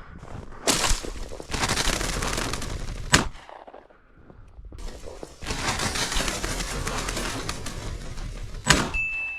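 Shotgun fired three times, a few seconds apart, with stretches of loud rustling noise between the shots. A steady high beep begins right after the last shot.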